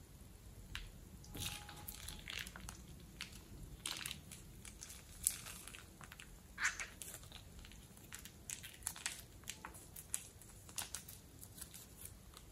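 Plastic piping bag crinkling and crackling as a hand squeezes thick slime out of it: a string of short, irregular crackles, with a few louder ones around the middle.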